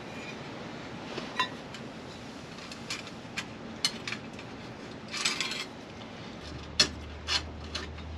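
Turn signal switch wiring and connectors being fished through a steering column, giving scattered light clicks and metallic clinks with a short rustling scrape about five seconds in. A low steady hum joins near the end.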